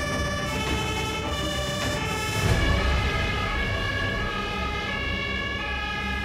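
Fire engines' two-tone sirens sounding, several overlapping, each switching back and forth between two pitches, over a low engine rumble.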